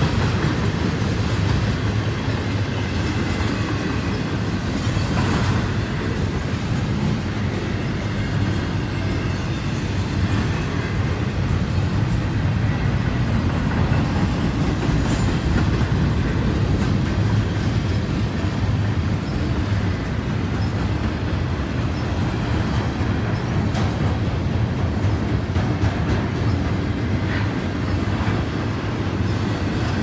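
Double-stack intermodal freight train's well cars rolling past at steady speed: steady wheel-on-rail noise, heaviest in the low end, with scattered clicks of the wheels.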